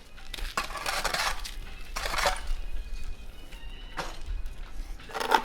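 Construction debris being cleared by hand: rubble and scrap clattering and scraping with metallic clinks, in a few bursts, with a sharp knock about four seconds in.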